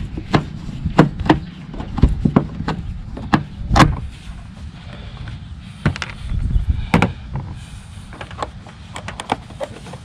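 Scattered clicks and light knocks of hand work on a plastic tag light lens: a screwdriver backing out the small lens screw, then the lens being handled and prised from its housing, over a steady low rumble.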